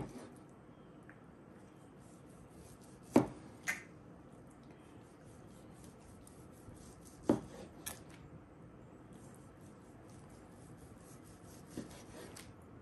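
Chef's knife slicing through smoked pastrami, the blade knocking sharply on a plastic cutting board at the end of each slice, a few seconds apart.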